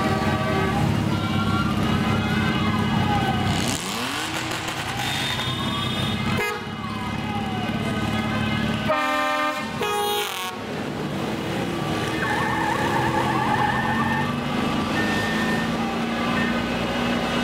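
Motorcycle engines running at slow parade pace, with a siren wailing up and down several times over them and horns sounding in held notes.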